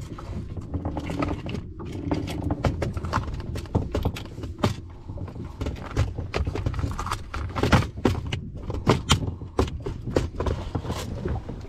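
Irregular plastic clicks and knocks as a plastic tackle box is snapped shut and shifted about on the plastic hull of a small boat, over a low steady rumble.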